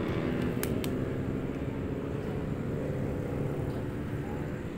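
Steady low rumble of engine and traffic noise, with two short sharp clicks a little over half a second in.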